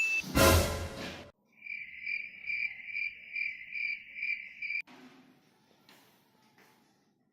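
A loud snore lasting about a second, then a cricket chirping steadily, about two chirps a second, for some three seconds before cutting off abruptly.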